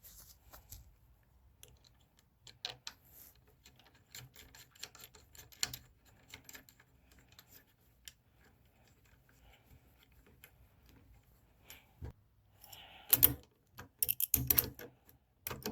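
Small metallic clicks, taps and rubbing as a bent bass tuning machine is handled and fitted back into the headstock, with a few sharper, louder clicks near the end.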